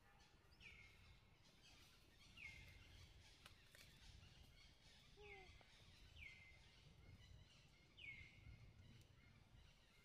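Faint outdoor ambience with a bird repeating a short, falling chirp about every two seconds.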